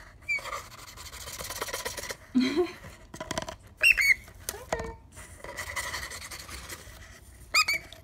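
Lutino cockatiel giving short, sharp squeaky calls, the loudest a quick pair about four seconds in and another near the end. Between the calls there is a scratchy rustle as the bird pushes into a paper tube on a wooden table.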